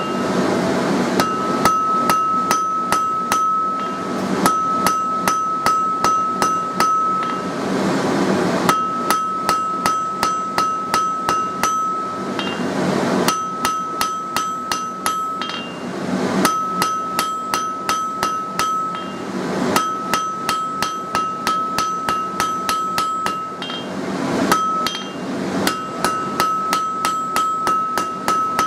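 Hand hammer striking hot mild steel on an anvil in runs of quick blows, about three a second, with a steady high ring from the anvil through each run. The runs are broken by brief pauses about every three to four seconds.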